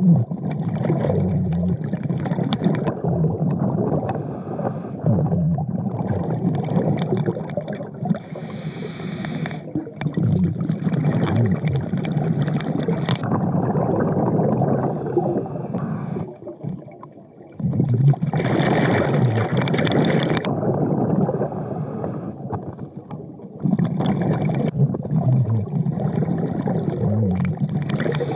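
Diver breathing underwater through a regulator: long stretches of bubbling exhalation, with hissing inhalations at about 8 seconds and again about 18 seconds in.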